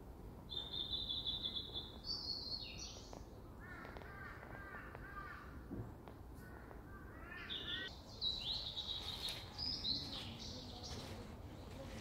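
Songbirds singing in a spring forest: a rapid high trill about half a second in, then runs of quick repeated lower notes in the middle, and more high chirping phrases towards the end, over a faint steady low background noise.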